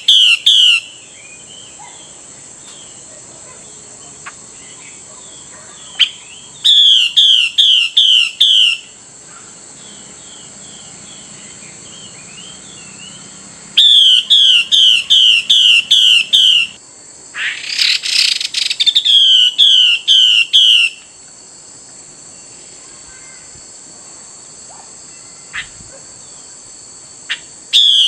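Female Chinese hwamei (Melodious laughing-thrush) giving her calling-the-male call: runs of quick downslurred whistled notes, about three to four a second, in bouts of two to three seconds separated by pauses. A single harsh, noisy rasp comes midway, and a steady high hiss lies under it all.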